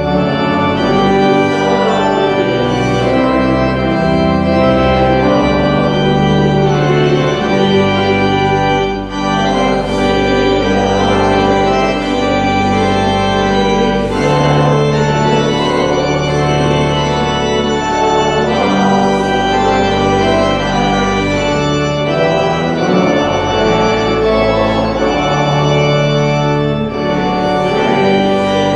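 Church organ playing the postlude at the close of the service: full sustained chords over held bass notes that change every second or two.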